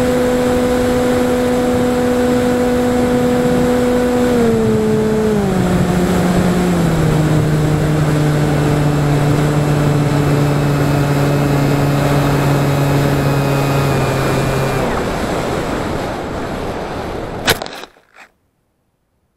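Electric motor and propeller of an FPV flying wing running with a steady hum, under loud wind rush on the onboard camera's microphone. The pitch drops in a few steps as the throttle is pulled back, and the motor stops about fifteen seconds in. The wind then fades, and a single sharp knock near the end marks the wing landing in grass.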